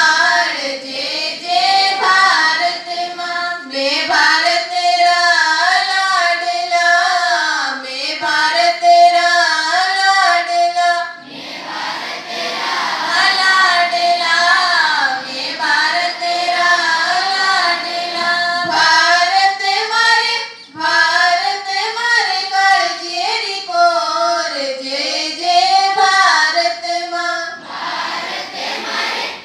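A large group of schoolchildren singing a prayer together in chorus. The melody runs in phrases, with short pauses about a third of the way in and again past two-thirds.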